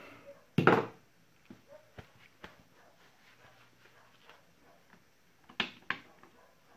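Plastic parts of a cordless drill being handled and fitted together: one loud knock just under a second in, scattered faint ticks, and two sharp clicks close together near the end as the trigger switch module is pressed into the housing.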